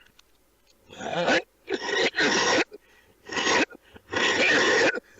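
A man coughing hard in a fit: five harsh coughs in a row, the last one drawn out for almost a second.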